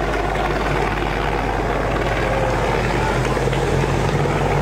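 Steady motor drone from the race's accompanying vehicles, with a low, level hum throughout.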